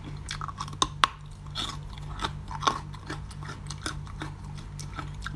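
Crunchy chewing of a frozen-hard cucumber piece: irregular crisp crunches, with two louder bites about a second in.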